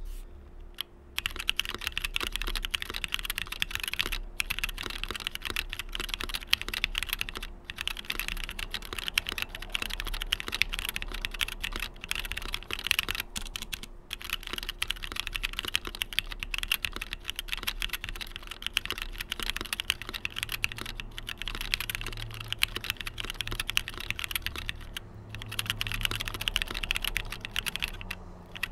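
Continuous fast typing on an XD84 75% custom mechanical keyboard with a top-mounted plate in an aluminium case. The keystrokes come densely with a few brief pauses.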